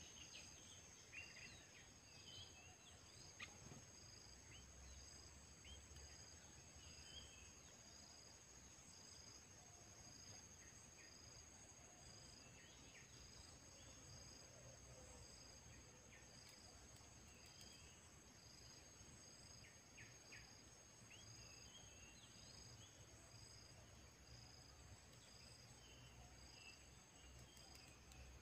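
Faint field ambience: a steady high insect drone with a soft insect chirp repeating about once a second, and a few short bird chirps scattered through.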